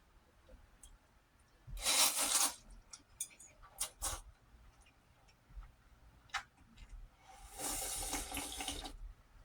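A person loudly slurping ramen noodles and broth, twice: a short slurp about two seconds in and a longer one near the end, with a few light clicks between them.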